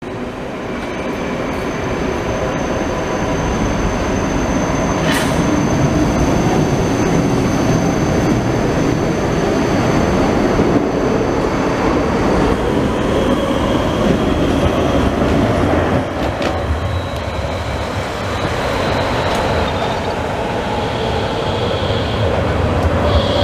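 Berlin BVG articulated trams passing close: a steady rumble of wheels on rail, with one sharp click about five seconds in. In the second half, thin high tones of wheel squeal come in, and a wavering tone is heard near the end.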